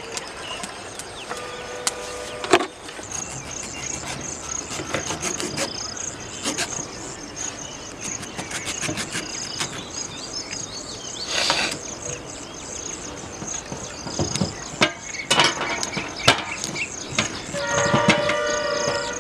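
Steady high chirring of insects, with scattered sharp clicks and snaps as red bananas are pulled and cut off the bunch with a knife. A short pitched tone sounds about two seconds in and again near the end.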